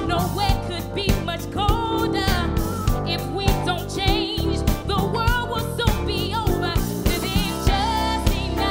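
A woman singing lead in a Motown soul song with a wide vibrato, backed by a live band whose drums and bass keep a steady beat.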